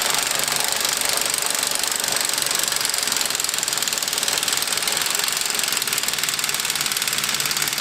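Cordless impact wrench hammering steadily for several seconds on a snowmobile ski-mount bolt, working to break the bolt loose.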